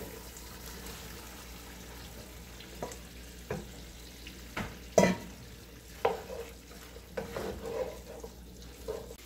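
Wooden spatula stirring fried chicken pieces into a sauce in a frying pan, knocking and scraping against the pan several times, loudest about five seconds in. The sauce is frying with a low sizzle underneath.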